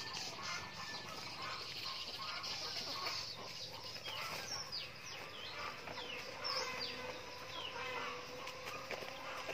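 Chickens clucking and giving short, high, falling chirps as they peck at food, the chirps coming thickest in the middle.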